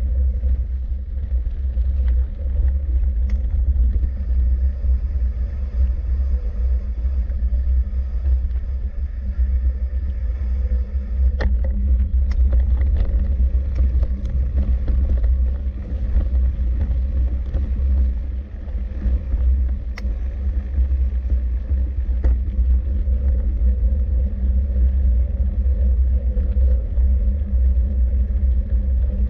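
Steady low rumble, with a few sharp clicks or rattles, the clearest about 11 and 20 seconds in.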